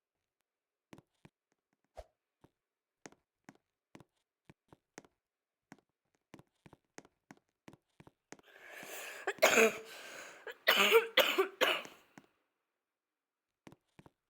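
A person coughs hard several times in one fit, with the loudest coughs a little past the middle and near the end. Faint, scattered clicks come before it.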